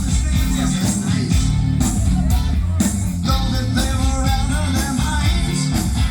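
A rock band playing live, loud, with drums, bass and electric guitar; a singer or lead guitar line comes in about halfway through.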